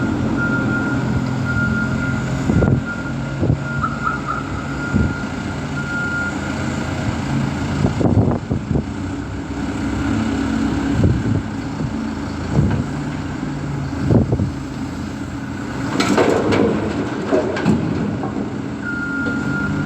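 Heavy diesel machinery running steadily, with a reversing alarm beeping for the first few seconds and again near the end, and several clanks and knocks from the work.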